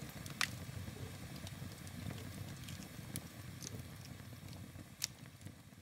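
Faint fire ambience: a steady low rumble with a few sharp crackles and pops scattered through it.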